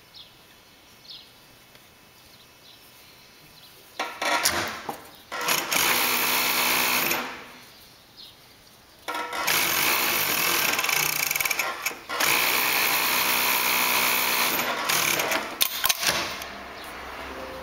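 Brother FD4-B277 three-needle coverstitch industrial sewing machine running at speed in several runs, starting about four seconds in, with brief stops between them, then slowing and stopping near the end.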